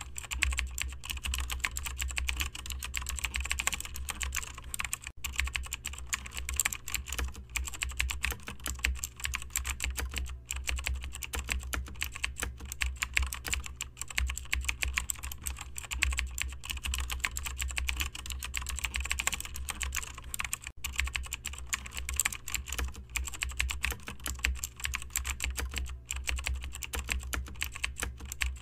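Computer keyboard typing: a rapid, continuous run of key clicks, with a steady low hum underneath.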